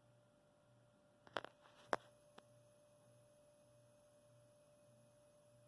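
Near silence with a faint steady tone in the background, broken by two short clicks about a second and a half and two seconds in.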